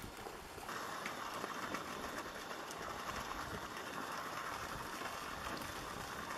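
Steady outdoor background hiss that gets louder about a second in and then holds.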